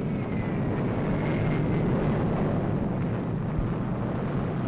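Steady, loud rumble of an Atlas booster's rocket engines at liftoff, with a faint high tone sliding slightly downward over the first couple of seconds.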